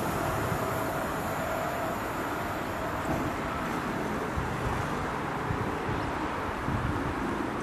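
Wind buffeting the microphone over the fading rumble of a double-deck regional train that has just passed, with a faint steady tone dying away in the first two seconds.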